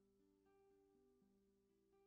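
Very faint background music: a slow melody of plucked string notes.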